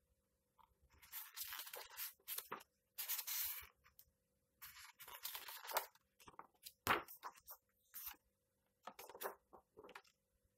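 Pages of a large hardcover comic book being turned by hand: a series of short paper swishes and rustles, with one sharp tap about seven seconds in.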